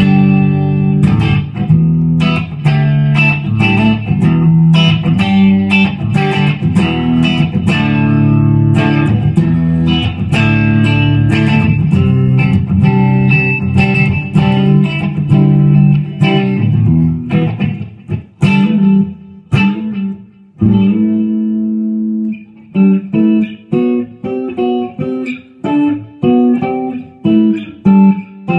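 1996 Epiphone Les Paul Custom electric guitar with Gibson 490 pickups being played: ringing, sustained chords for the first two-thirds, then short, choppy chord stabs with brief gaps between them.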